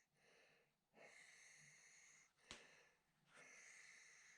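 Near silence: faint hiss that comes and goes, with one faint click about two and a half seconds in.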